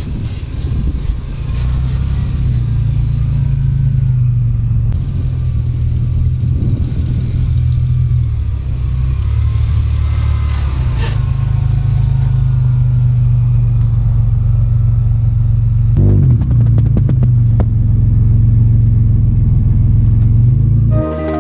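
Nissan Xterra driving: a loud, steady, low engine and road drone, with a brief clatter about three-quarters of the way through.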